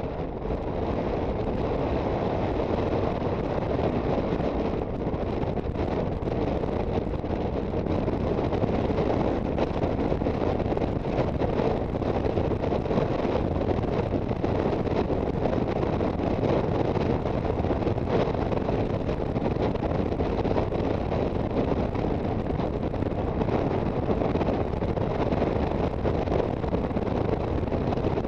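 Steady wind rush buffeting the microphone on a moving Aprilia Sportcity Cube 250 scooter, with the scooter running and road noise underneath.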